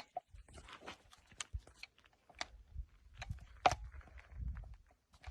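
Faint scattered clicks, scuffs and shuffling of a shooter handling the shotgun and shifting their feet while getting into position, with a low rumble in the second half. No shot is fired.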